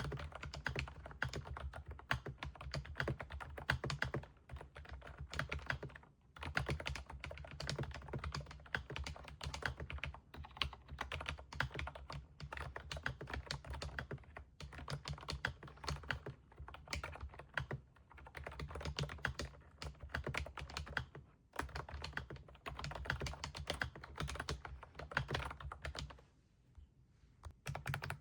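Aula S99 mechanical keyboard being typed on fast, keystrokes clattering in long runs with a low thud under them. The runs are broken by brief pauses, with a longer pause near the end.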